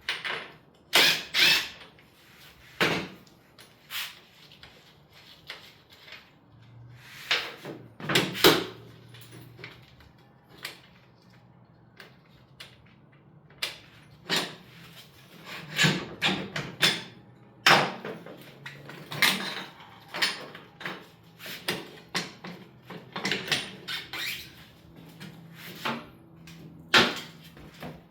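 Irregular metallic clanks, knocks and clicks of hand tools and parts being handled while a motorcycle's rear wheel is taken off and refitted, with a faint low hum under parts of it.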